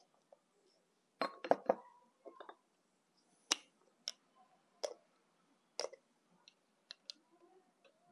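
Light clinks of kitchen utensils against dishes: a quick run of three or four strikes about a second in, then single sharp clicks about once a second.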